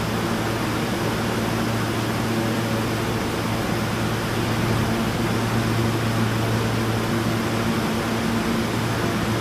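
Subway station background: a steady mechanical hum over an even rushing noise, the low drone holding one pitch with a higher overtone. It swells slightly about halfway through.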